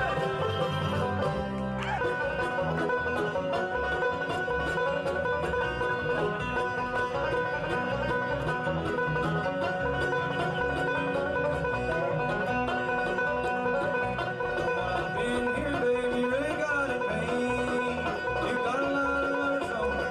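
Live bluegrass band playing an instrumental passage: rapid banjo picking over acoustic guitars and dobro, with sliding notes here and there.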